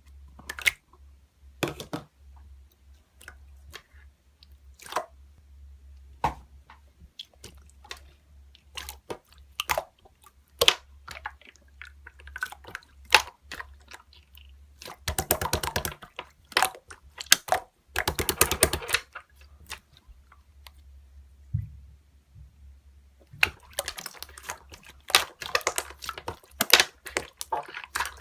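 Slime being pressed and stretched by hand, giving off scattered sharp clicks and pops, with denser stretches of crackling about fifteen and eighteen seconds in and again from about twenty-three seconds on.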